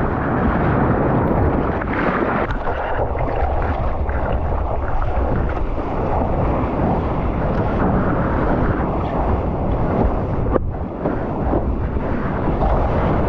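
Rushing seawater and wind buffeting a surfer's GoPro microphone: a steady, loud noise with a brief dip about ten seconds in.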